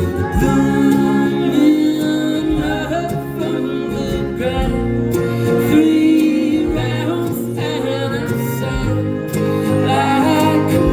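Live indie-folk band playing between sung lines, with guitar and other instruments and some singing.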